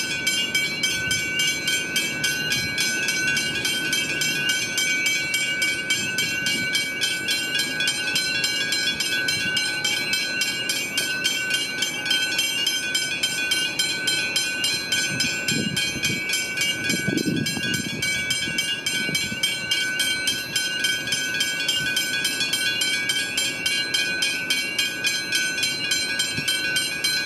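Railway level-crossing bells ringing continuously in fast, even strokes, with steady high ringing tones, while the crossing is active. A brief low sound comes just past the middle.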